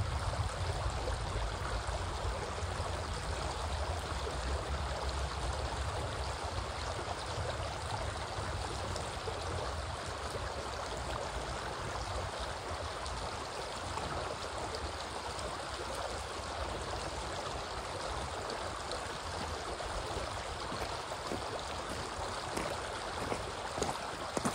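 Steady rushing of running water, an even wash of noise with a low rumble under it in the first half.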